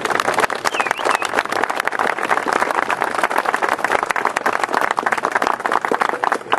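Audience applauding, a dense run of hand claps, with a short high whistle about a second in.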